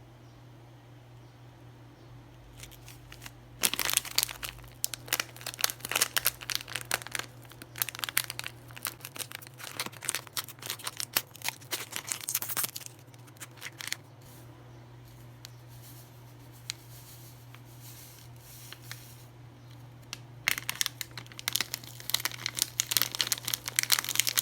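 Irregular crinkling and crackling, as of something being handled and crumpled, in two spells: one from about four seconds in that lasts about ten seconds, and another near the end. A steady low hum sits underneath.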